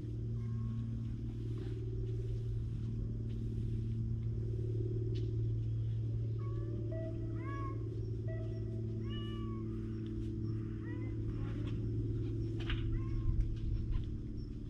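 A cat meowing in several short, high calls in the middle, over a steady low rumble.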